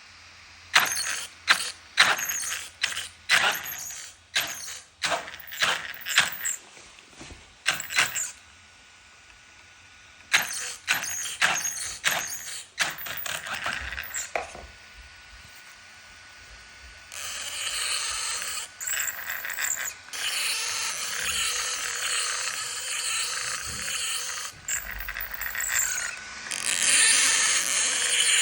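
Wltoys 124017 RC car's motor and drivetrain, given short throttle bursts in two runs, then running steadily from about two-thirds of the way in. This is the unwanted noise the car makes.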